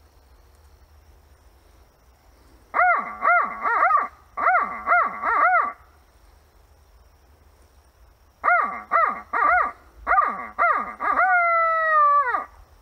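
Barred owl hoots blown on a hand-held owl call: two rhythmic phrases of "who-cooks-for-you" hoots, the second ending in a long drawn-out falling note. It is a turkey hunter's locator call, meant to make a gobbler shock-gobble.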